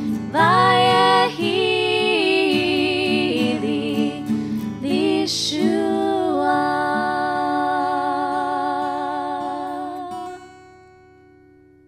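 A woman singing with vibrato to acoustic guitar accompaniment. The song ends on a long held note that fades out about ten seconds in.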